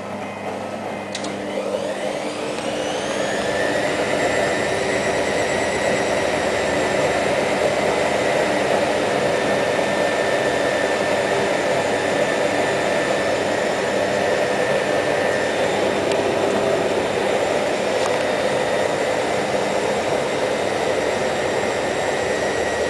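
Hoover ÖKOLOGIC WA1000 De Luxe washing machine spinning up: a little after the start the motor's whine rises in pitch and grows louder for about three seconds, then holds as a steady high-speed spin.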